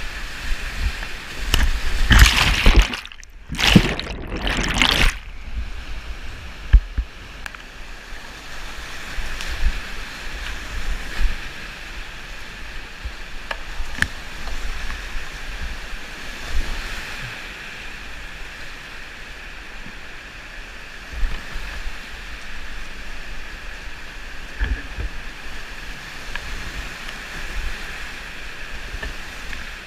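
Whitewater river rushing, with a kayak splashing through rapids. A loud run of splashes comes about two seconds in, then the water settles to a steadier rush with occasional sharper splashes.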